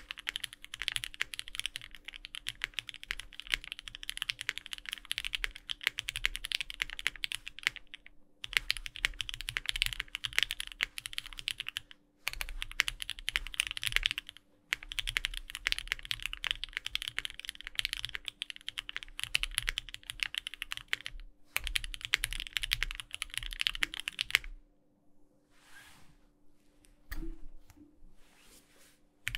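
Fast, continuous typing on a Bakeneko60 mechanical keyboard with lubed Thic Thock Marshmallow linear switches, GMK keycaps and an aluminium plate, no foam, broken by a few brief pauses. The typing stops a few seconds before the end, leaving a handful of isolated keystrokes.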